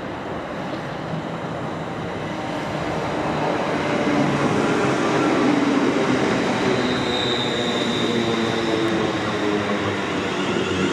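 Class 350 Desiro electric multiple unit running into the platform, its wheels and running gear growing louder over the first few seconds as the carriages pass close by, then holding steady. A brief high whine sounds about seven seconds in.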